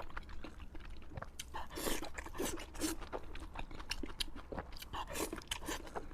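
A person chewing crispy fried pork close to the microphone, with many short, irregular crunches and crackles as the fried crust breaks between the teeth.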